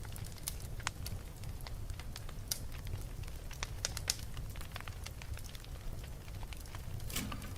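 Wood fire burning in a fireplace: a steady low rumble with irregular sharp crackles and pops, a cluster of them near the end.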